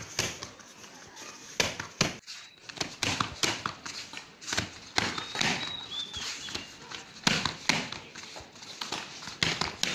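Taekwondo kicks striking a padded kick target: a series of sharp slaps at irregular intervals, some in quick pairs, with bare feet landing on foam mats.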